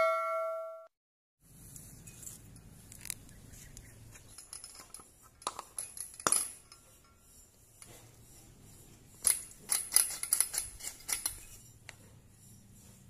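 A bell chime fades out, then a hand tool chips away at the screw base of an old incandescent light bulb. Small glass and metal clicks, crunches and clinks come in scattered bunches, thickest about six seconds in and from about nine to eleven seconds.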